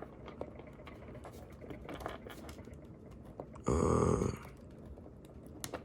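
Small plastic clicks and taps from fingers working tiny accessories onto a plastic action figure, with one louder half-second burst of noise about four seconds in.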